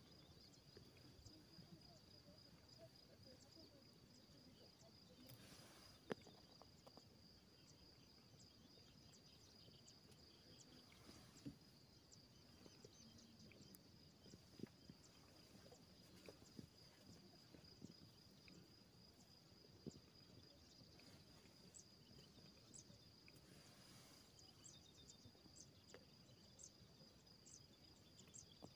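Faint, near-silent outdoor ambience with a steady high-pitched insect chirring running throughout, and a few brief faint clicks.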